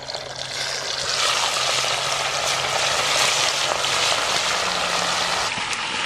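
Whole mojarras frying in hot oil: a steady, loud sizzle that swells about a second in as two more fish go into the pan.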